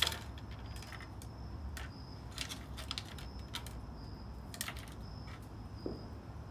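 Plastic spoons and forks clicking and tapping as a toddler handles them and knocks them against a wooden table: a dozen or so irregular light clicks, the first the loudest. Behind them a faint high insect chirp repeats about once a second.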